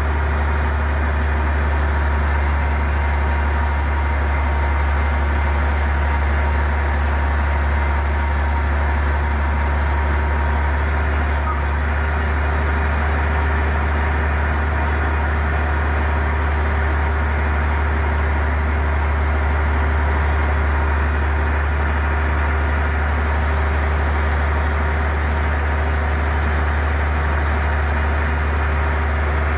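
Heavy diesel engine of earthmoving equipment running steadily at an even, unchanging speed.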